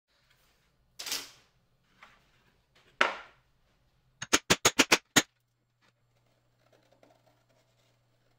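Chipboard pieces handled on a cutting mat: a short swish of board sliding about a second in, a louder one about two seconds later, then a quick run of six sharp clicks lasting about a second.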